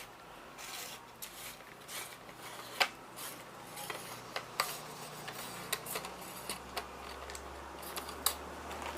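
Fishing rod and reel being handled, giving scattered light clicks and taps at irregular intervals. A faint low hum builds in the second half.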